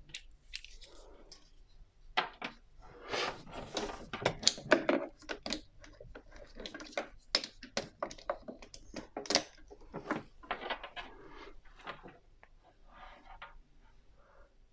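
Handling noise on a desk: a quick run of clicks, knocks and rustles from small hard plastic items being picked up and moved, busiest in the middle and thinning out near the end.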